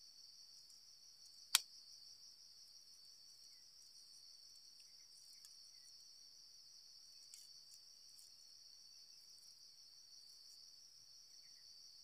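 Faint, steady high-pitched chorus of insects, with one sharp click about a second and a half in.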